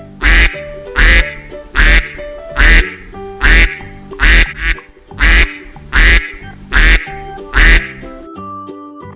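A duck quacking loudly about ten times at an even pace, a little more than one quack a second, over background music.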